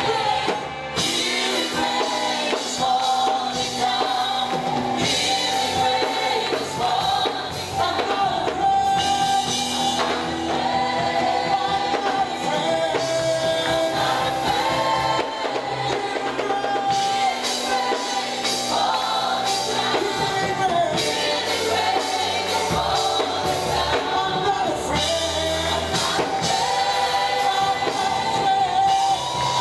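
Live gospel worship music: a group of singers leads a song over instrumental accompaniment, going on without a break.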